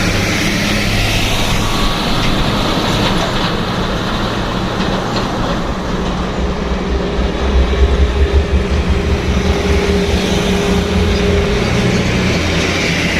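Heavy truck's diesel engine labouring as it drives past, with tyre and road noise; the low rumble swells and is loudest about eight seconds in.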